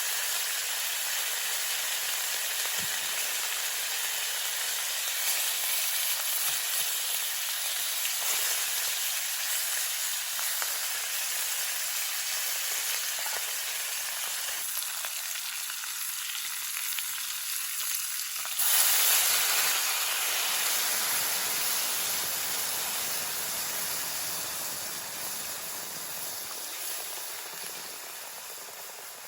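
Ribs sizzling as they fry in a hot pan, a steady dense sizzle. About two-thirds of the way through it suddenly gets louder and fuller, then fades away gradually toward the end.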